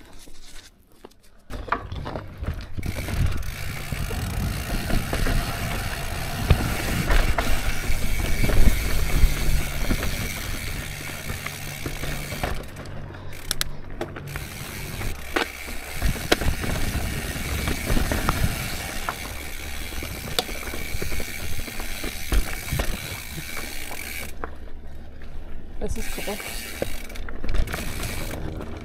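Mountain bike setting off and rolling down a rocky dirt trail: the freehub clicking as it coasts, with tyres crunching over loose stones and the bike rattling over the rocks. It starts about a second in.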